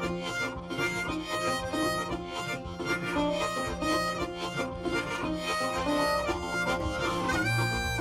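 Background music led by a harmonica, playing a melody of held notes.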